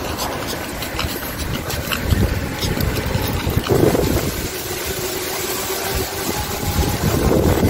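Wind buffeting the microphone in a low, uneven rumble, with a steady low hum for about two seconds in the middle.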